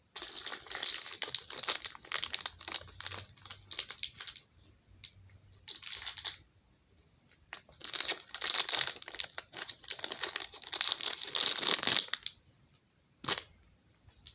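Crinkly plastic wrapping being handled and torn open, in long spells of dense crackling, with one sharp click near the end.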